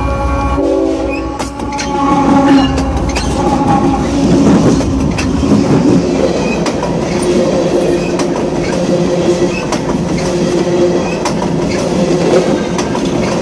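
Union Pacific freight cars rolling directly overhead, heard from underneath the train: a loud, dense clatter of steel wheels on rail, with many sharp clacks and a steady metallic ring.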